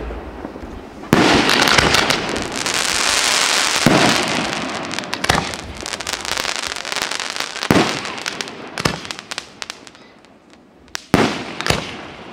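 Aerial firework shells bursting overhead. A sharp bang about a second in is followed by a few seconds of dense crackling, then further bursts a second or two apart. Two sharp bangs come near the end.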